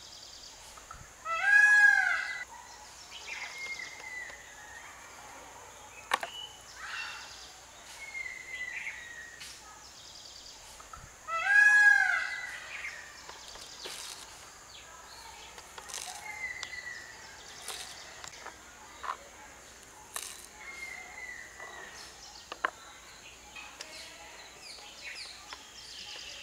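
Birds calling: a loud call with several overtones rises and falls twice, about ten seconds apart, over repeated short falling whistles from other birds. A few light clicks sound in between.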